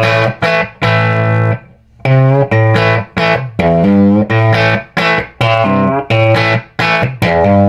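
Electric guitar (a Stratocaster) played in repeated chord stabs, some held longer, through a Fender Pro Junior III's preamp with its volume fully up, taken from the new line output and heard through a small MG10 solid-state bench amp. The cranked preamp gives it an overdriven edge.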